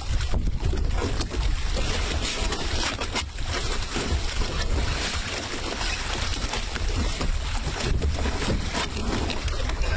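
Wind buffeting the microphone: a steady low rumble with crackling gusts over outdoor noise.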